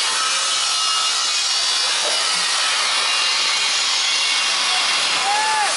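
Steady hiss of outdoor background noise, with faint distant voices and a short rising-and-falling call near the end.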